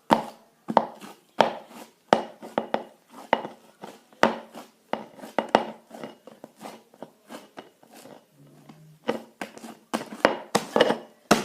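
A utensil scraping and knocking against a bowl in repeated short strokes as the last of the slime is scraped out of it.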